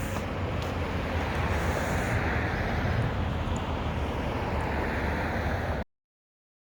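Diesel engine of a Mack McNeilus front-loader garbage truck running with a steady low rumble, a wash of noise swelling about two to three seconds in as the truck moves. The sound cuts off abruptly near the end.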